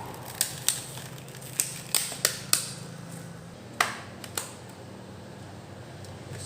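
A run of sharp plastic clicks and snaps, about eight in all, most of them in the first three seconds, from handling 8 GB RAM modules and their plastic packaging. A faint steady low hum lies underneath.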